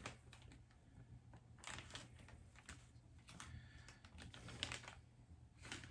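Faint handling noises: scattered light clicks and rustles of a small skincare package being turned over in the hands, over a low room hum.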